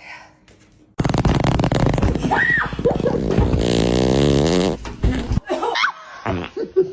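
A long, loud, buzzing fart that starts abruptly about a second in and lasts about four seconds. Its pitch wavers and sinks toward the end before it cuts off.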